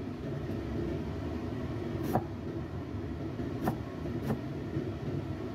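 A cleaver cutting eggplant on a wooden board: three sharp knocks, about two seconds in and then twice more close together a second and a half later, over a steady low rumble.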